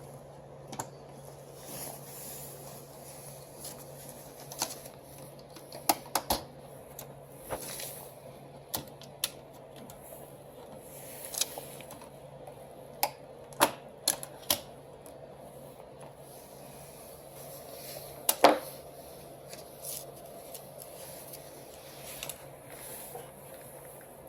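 Irregular sharp clicks and knocks of plastic and metal parts being handled and worked on during disassembly of a copier fuser unit for a bearing replacement.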